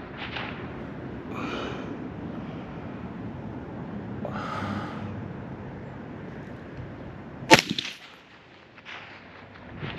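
A single sharp rifle shot about three quarters of the way in, from a Ruger SFAR semi-automatic rifle chambered in .308, over a low steady background noise.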